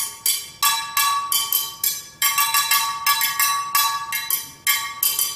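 Car brake drums struck with sticks as percussion instruments, played in a quick rhythm of several hits a second. Each hit is a bright metallic clang with a clear ringing pitch that dies away quickly.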